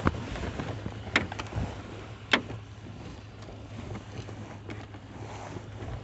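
Three sharp clicks, at the start, about a second in and a little over two seconds in, as the jump starter's clamps are handled and clipped onto the truck's battery, over a steady low hum.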